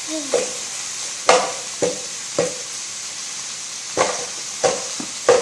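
Chicken frying in oil in a pan, sizzling steadily, while a utensil stirs it, knocking and scraping against the pan about seven times.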